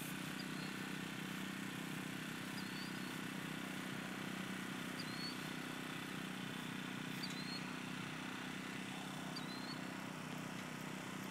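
Steady low hum of distant traffic, with a short, high, rising bird chirp repeated about every two seconds.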